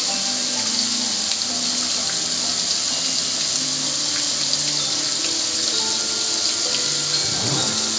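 Garden hose spray nozzle spraying a steady stream of water onto a black gas grill's lid: an even hiss of spray and spatter that holds steady throughout.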